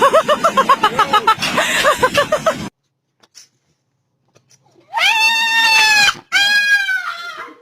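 An animal calling: a fast run of short, pitched yelps that stops about two and a half seconds in, then after a pause two long, high cries, the second one falling in pitch.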